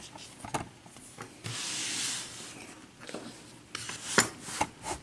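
Handling noise from a Euro lock cylinder and tools: scattered light metal clicks and knocks, with a rubbing scrape about a second long partway through.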